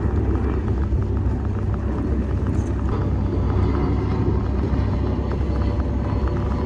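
Motorboat engine running steadily at low, no-wake speed: a constant low drone.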